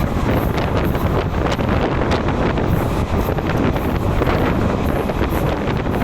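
Passenger train running at speed, heard from inside a coach: a steady rumble of wheels on the rails with many short, irregular clatters, and wind buffeting the microphone.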